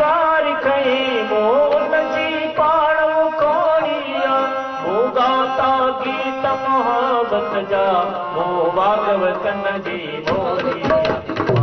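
Male vocalist singing a Sindhi song in long, wavering melismatic phrases, over steady held accompanying notes and drum strokes. The drumming grows busier near the end.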